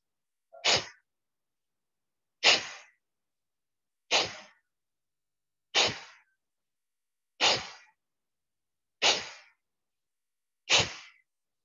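A woman's forceful breaths out through the left nostril in a yogic breathing exercise: seven sharp, short blasts at an even pace, about one every second and a half, with faint quick breaths in between.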